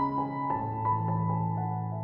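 Slow, gentle instrumental background music: held keyboard notes that change every half second or so over a sustained low bass note.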